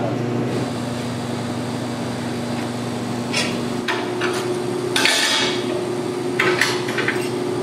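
TIG welding arc on aluminum buzzing steadily for about the first four seconds, then a few short metallic clanks and scrapes as a metal clamp is worked loose on the welded aluminum piece.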